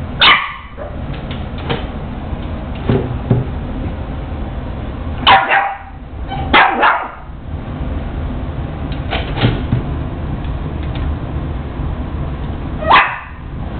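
A Boston Terrier puppy barking at her own reflection: short, single high barks spaced irregularly a second to a few seconds apart, with two in quick succession in the middle.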